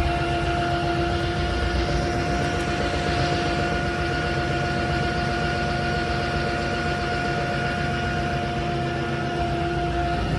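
Roborock F25 RT wet-dry vacuum running its deep self-cleaning cycle in its base: a steady motor hum with a steady whine on top.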